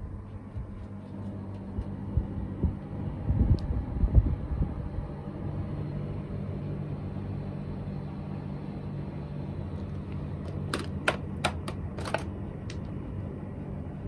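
Panasonic Envio split air conditioner indoor unit running just after power-on: a steady hum from its fan, with some low bumps in the first few seconds. A quick run of five or six sharp clicks comes about eleven seconds in.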